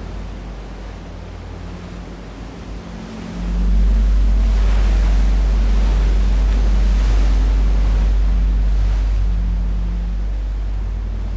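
Electronic performance soundscape: a deep, steady drone that swells abruptly about three and a half seconds in and slowly eases. Over it a rushing, surf-like noise rises and falls, with faint held low tones.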